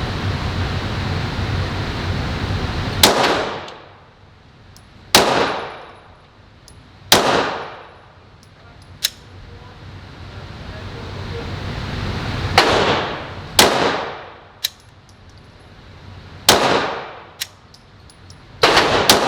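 Pistol shots from a 9mm Glock 17, about seven loud reports fired a second to several seconds apart, each followed by a long echoing decay. A steady rushing noise fills the first three seconds before the first shot.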